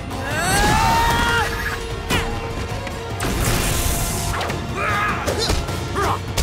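Cartoon fight sound effects over action music: crashes and blows, with a rising swooping effect about half a second in and a loud crash around three and a half seconds in.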